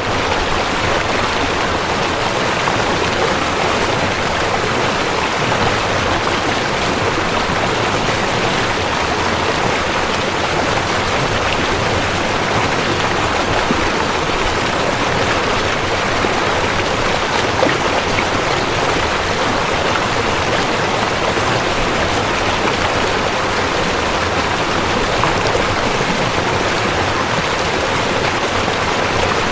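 River water flowing steadily, an even, unbroken wash of water noise.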